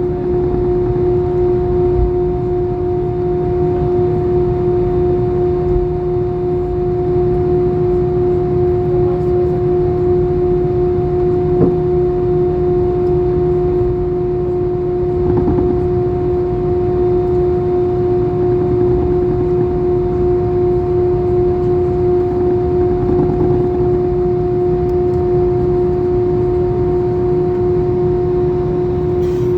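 Airbus A320's jet engines at steady thrust, heard inside the cabin: a loud, constant rush of air and engine noise with a steady, unchanging drone.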